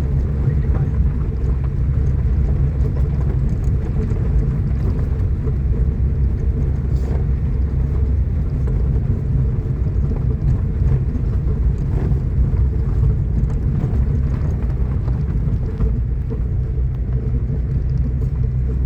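A car driving up a steep dirt road: a steady low rumble of engine and tyres, with faint scattered ticks.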